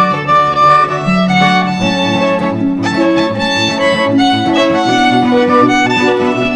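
Background music: a melody of held notes over a pulsing, plucked-sounding low accompaniment.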